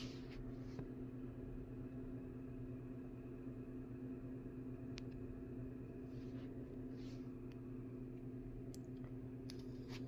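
A steady low hum with a few faint clicks.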